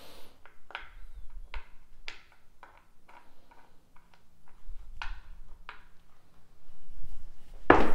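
Scattered faint clicks of dice being handled, then near the end a louder clatter as a pair of dice is thrown down a craps table and bounces off the back wall.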